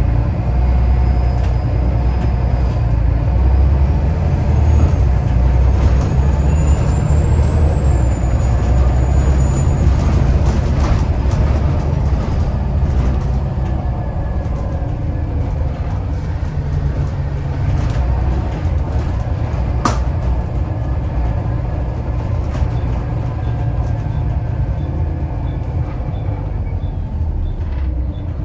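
Volvo B7TL double-decker bus's turbocharged six-cylinder diesel engine working hard, with a high turbo whistle that climbs and then falls away about a quarter of the way in. A single sharp click about two-thirds through.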